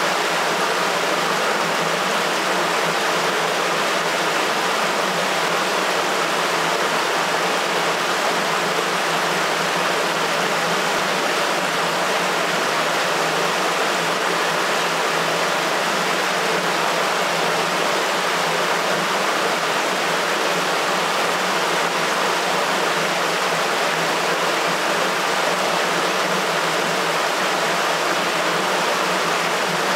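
Wastewater rushing through a sewer: a steady, unbroken rushing noise with little deep rumble.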